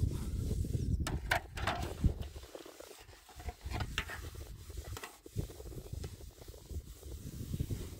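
A metal blade scraping and clicking against a round metal griddle sheet, a few short strokes, the clearest about a second in and again near the middle, over a steady low rumble.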